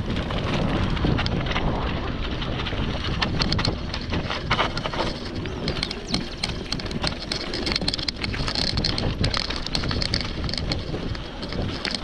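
Mountain bike rolling downhill over a rough dirt and stone track: the tyres crunch on gravel and the bike rattles over bumps in many sharp ticks, with wind buffeting the microphone.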